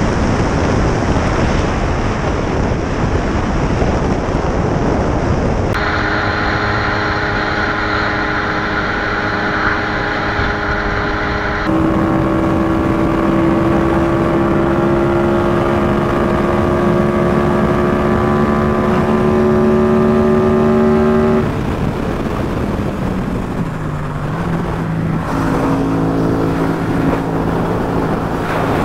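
Motorcycles being ridden on the road, across three cuts. First mostly wind and road rush, then a steady engine note, then a Yamaha FZ-07's parallel-twin pulling steadily higher in pitch for about ten seconds. About two thirds of the way through it drops back to a lower, steadier note.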